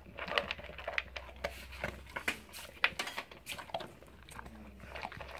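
A pitbull eating dry kibble from a plastic bowl: irregular crunching and clicks of kibble against the bowl.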